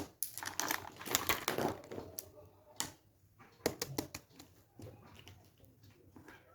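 Irregular clicking and rustling of small plastic fidget toys being handled, a quick run of clicks followed by sparser taps.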